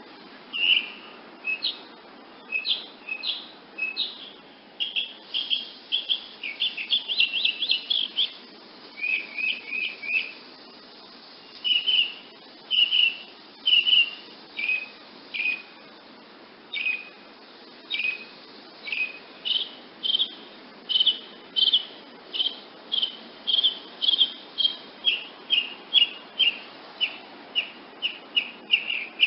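Woodnymph hummingbird giving short, sharp chip calls, repeated about once or twice a second, with a quicker run of chips about a quarter of the way in.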